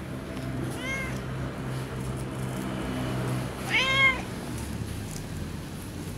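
Long-haired brown tabby cat meowing twice while being stroked: a short meow about a second in, then a longer, louder one about four seconds in, each rising and falling in pitch. A low steady hum runs underneath and fades after the second meow.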